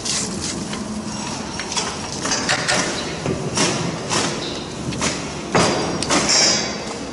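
Handling noise from a CNC gantry's servo motor being disconnected by gloved hands: irregular clicks, knocks and scrapes of cables and connectors, with the loudest knock and scrape about five and a half seconds in, against a steady workshop background noise.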